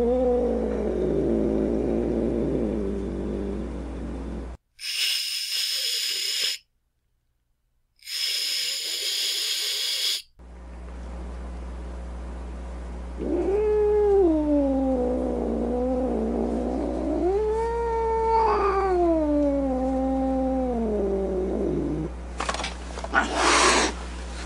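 Domestic cat caterwauling: long, wavering yowls that bend up and down in pitch, a typical angry or threatening cat call. Two short hisses come about five and eight seconds in, and a sharp hiss near the end. A steady low hum sits under the later yowls.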